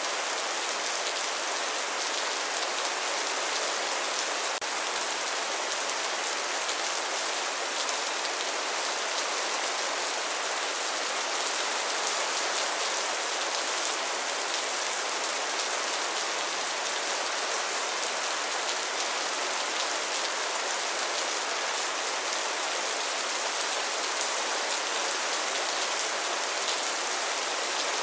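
Steady rain falling, an even hiss with no pauses or thunder.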